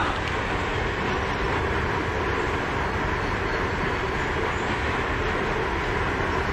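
A steady rumbling noise that stays even throughout, with no distinct tones or knocks.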